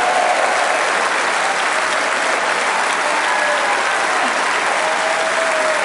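A large hall audience applauding: dense, steady clapping from many people at once.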